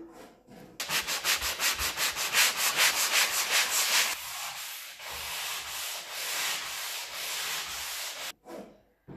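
Hand-sanding a wooden board, an old wardrobe door, with a sanding block. Quick rhythmic back-and-forth strokes give way after about four seconds to smoother, steadier rubbing, which stops about a second before the end.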